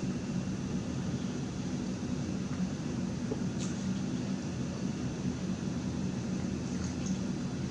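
Steady low machine hum with an even hiss, with a couple of brief faint clicks about three and a half seconds in and near the end.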